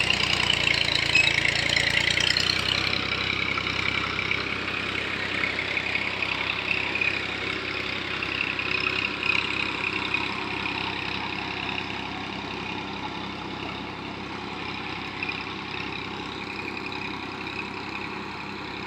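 Tractor engine running steadily while ploughing a field, growing gradually fainter.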